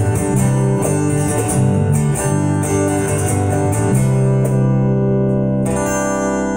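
Acoustic-electric guitar strummed together with an electric bass, ending on a final chord that is held from about four seconds in and rings out, slowly fading.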